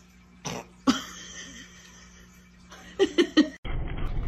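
A person's short laugh, three quick pulses, about three seconds in, after a few seconds of quiet room tone with a single click. A steady low rumble follows near the end.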